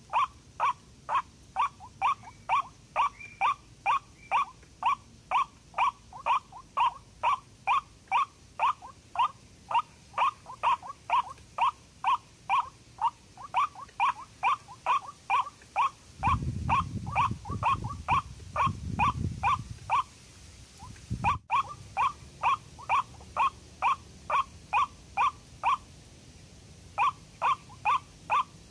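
White-breasted waterhen (ruak-ruak) calling: short notes repeated evenly at about two to three a second, with a few brief pauses. A low rumble runs under the calls for a few seconds past the middle.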